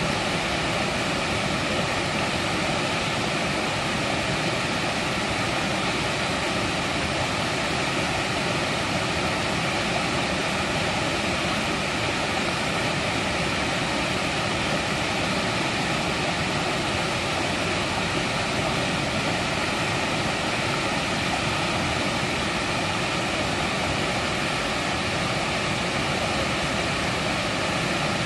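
Mountain valley stream running over rocks, a steady, even rush of water.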